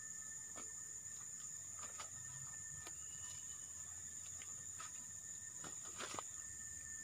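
Steady high, thin drone of insects in the forest, with a few light clicks scattered through it, the strongest about six seconds in.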